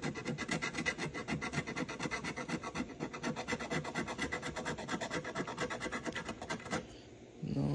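A coin scraping the coating off a paper scratch-off lottery ticket in quick back-and-forth strokes, several a second, stopping about seven seconds in.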